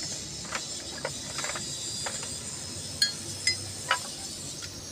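Metal hand tools and engine parts clinking during engine work: a few light knocks, then three sharp, ringing metallic clinks about half a second apart, over a steady high hiss.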